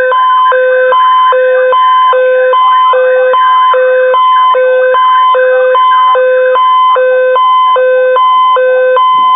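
Electronic two-tone alert signal, alternating evenly between a low and a high pitch a bit faster than once a second, sounded by a radio station's Emergency Alert System relay just ahead of the spoken Amber Alert message.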